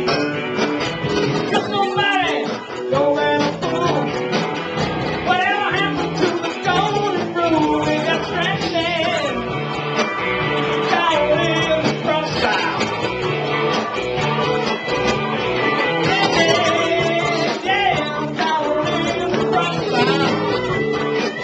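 Live rock and roll band playing: electric guitar, bass guitar and drums with a singer, loud and steady throughout.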